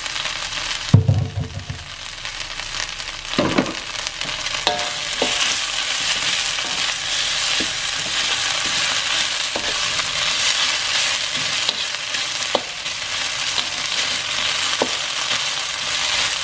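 Ground chili and spice paste with lemongrass and bay and kaffir lime leaves sizzling in a wok as it is sautéed until fragrant, stirred with a metal slotted spatula that clicks and scrapes against the pan every second or two. A dull thump about a second in briefly muffles the sizzle.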